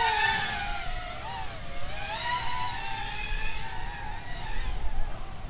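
Propel Star Wars battle drone, a small toy quadcopter, in flight: its motors whine with a pitch that keeps rising and falling as the throttle changes.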